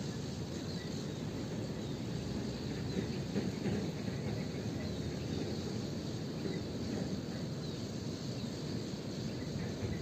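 Steady outdoor ambience at a riverbank: a low background noise with a faint high insect drone and a few short, faint chirps.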